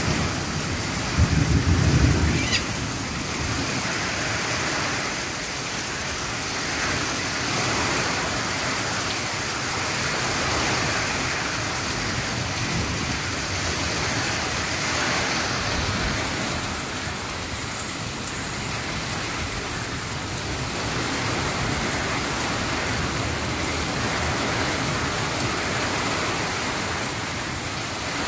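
Steady heavy rain falling on foliage, with a short low rumble of thunder about a second in, the loudest moment.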